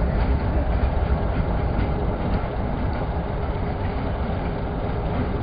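Train running on the rails: a steady low rumble with a few faint clicks of wheels over the track.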